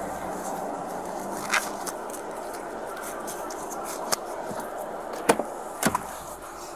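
Body-worn camera sound of a car being searched by hand: a steady background of road and vehicle noise with a few sharp clicks and knocks as things inside the car are handled and the camera is bumped, the loudest a little over five seconds in.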